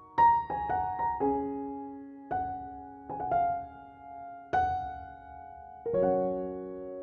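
Background piano music: single struck notes and short runs that ring and fade, ending on a held chord.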